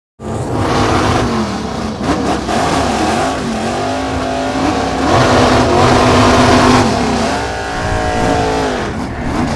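Axial Capra RC rock crawler driving: the electric motor and gear train whine, the pitch rising and falling with the throttle. The sound starts abruptly just after the beginning.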